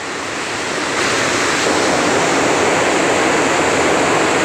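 Rushing water from a small waterfall cascade, a steady loud rush that grows louder about a second in.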